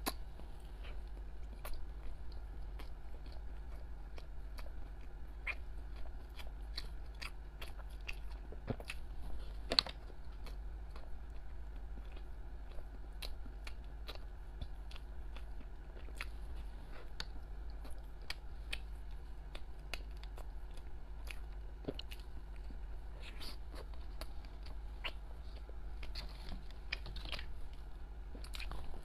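Close-miked biting and chewing of glazed, sprinkle-topped doughnuts, heard as scattered small clicks and mouth sounds over a steady low hum.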